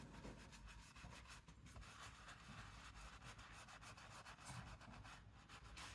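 Faint, rapid scratchy rubbing of a dome stippler brush dry-brushing paint onto a painting surface.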